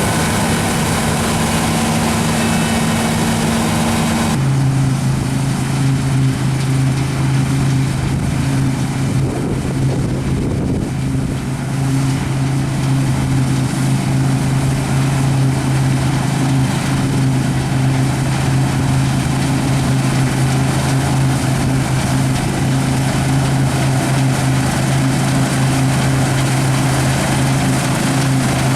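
Combine harvester running under harvest load: a steady diesel engine and threshing machinery hum. About four seconds in the hum changes abruptly to a lower, stronger pitch.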